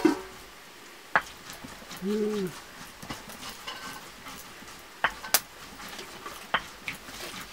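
A few sharp, separate clicks and knocks over a faint hiss, with one short voice-like call that rises and falls about two seconds in.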